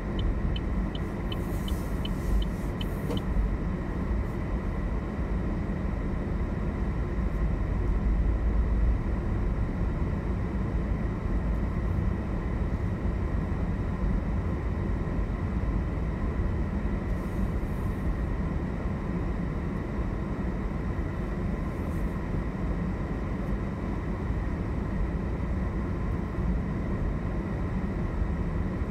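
A car's steady low rumble of engine and tyres on a wet road, heard from inside the cabin. A light, rapid, even ticking runs through the first three seconds.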